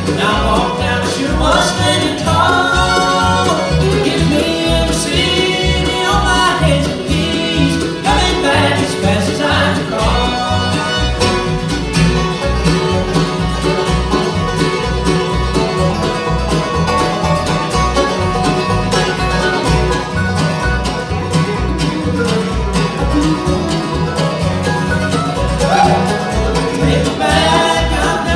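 Bluegrass band playing live: banjo, fiddle, acoustic guitars and mandolin over an upright bass keeping a steady beat.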